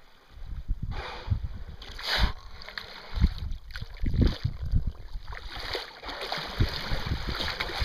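Wind buffeting the microphone in uneven gusts over the hiss and slosh of seawater beside a boat. The water noise grows heavier in the second half.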